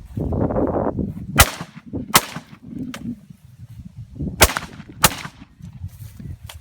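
Four carbine shots in two pairs, each a sharp crack with a short echo trailing off: the first pair about a second and a half in, the second pair about four and a half seconds in.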